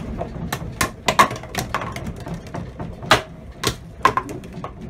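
Objects and furniture in a small room rattling and clattering as an earthquake shakes it: irregular sharp knocks over a steady low rumble.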